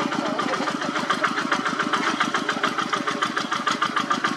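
Single-cylinder diesel engine of a two-wheel walking tractor running with a steady, rapid chugging beat, about nine pulses a second.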